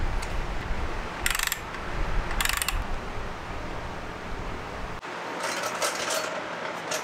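Hand ratchet clicking in short bursts as screws are driven into the moped's body panels: two bursts in the first three seconds and a few more about five to six seconds in, over a low steady rumble that stops abruptly about five seconds in.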